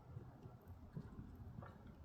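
Firewood burning faintly in an agungi firebox: a low, uneven rumble of the flames with a few soft crackles, one of them near the end.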